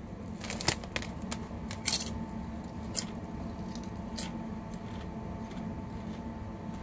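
Crunching of a Lay's fried pickles with ranch potato chip being chewed. A quick run of crisp crackles in the first two seconds thins out to a few later crunches.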